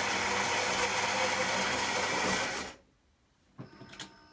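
Built-in ceramic grinder of a Philips EP2220 fully automatic espresso machine grinding coffee beans for an espresso: a steady grinding noise with a low hum that cuts off abruptly about two and a half seconds in. A couple of faint clicks follow near the end.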